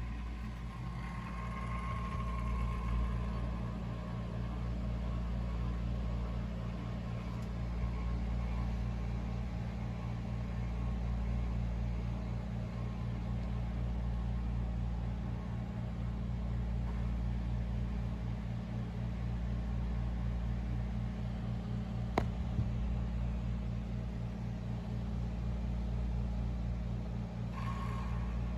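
Lian Li SL120 UNI FAN's motor humming steadily with a fast flutter while the fan fails to spin, the noise of a stalled fan. One sharp click about 22 seconds in.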